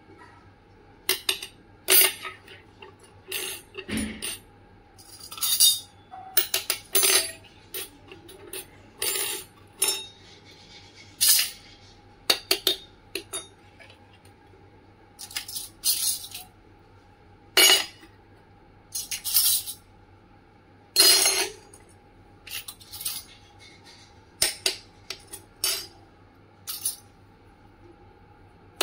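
Miniature stainless steel toy kitchen utensils (slotted spoons, spatulas, a small strainer) clinking and tapping as they are picked up and set down on a tabletop one by one. The sound comes as irregular sharp clicks with short gaps between them.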